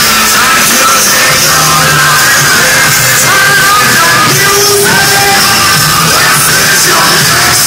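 Live rap concert heard through a phone's microphone in the crowd: loud backing music with yelled rap vocals from the stage.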